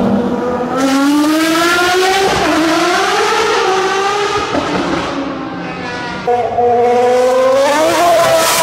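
High-revving racing car engines accelerating hard, the pitch climbing in several pulls through gear changes. About six seconds in, a louder run begins: a V10 Formula 1 car accelerating, rising in pitch near the end.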